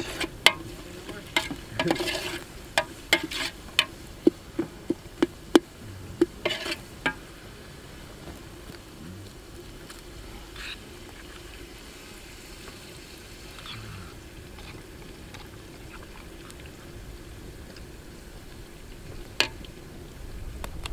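Small brushwood fire crackling under a steel cooking pot: a run of sharp pops and clicks for the first seven seconds or so, then a quieter steady hiss with one lone pop near the end.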